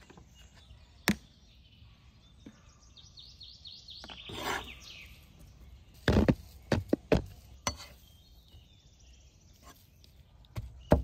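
Chunks of raw pork dropping onto a wooden cutting board, landing in several thuds a little past the middle, after a single knock about a second in. A bird trills briefly before the thuds, and a cleaver starts chopping pork mince on the wooden board in quick strokes near the end.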